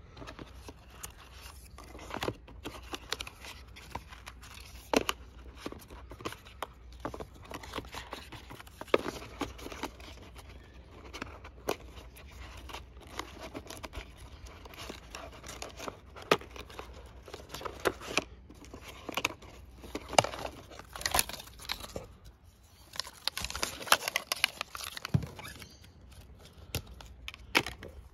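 Paper packaging of the MacBook Pro box being handled: crinkling, scraping and tearing as the charging cable is worked out of its paper tray and its paper wrap band is torn off. The sound is an irregular run of clicks and rustles.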